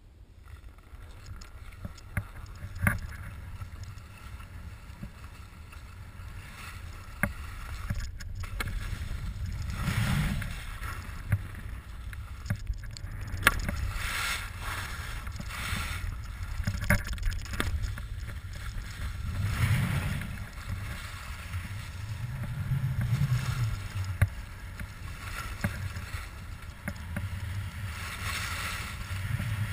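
Descending a groomed ski slope: snow hisses and scrapes under the edges, swelling and fading every few seconds with the turns. Wind rumbles on the microphone throughout.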